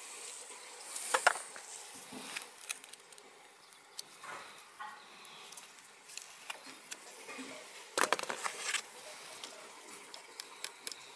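Intermittent metal clicks and knocks of a CV joint, its boot clamp and hand tools being handled, with two louder bursts of clicking about a second in and about eight seconds in.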